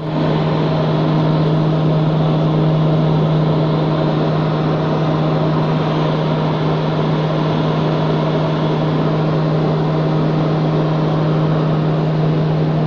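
Cabin noise of a high-wing propeller aeroplane in flight, heard from inside: the engines and propeller drone steadily, with a strong constant low hum under an even rushing noise.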